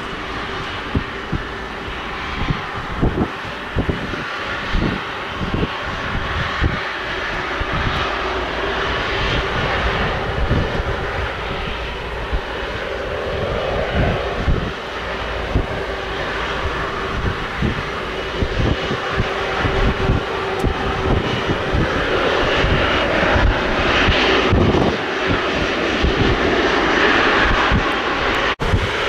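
Airbus A330's twin Rolls-Royce Trent 700 turbofans running at low taxi thrust, a steady jet whine over a broad rush that grows louder toward the end. Irregular low thumps of wind buffet the microphone.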